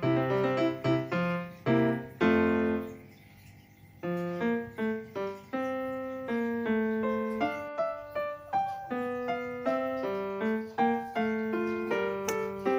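Background piano music, a run of separate notes that breaks off briefly about three seconds in and then carries on.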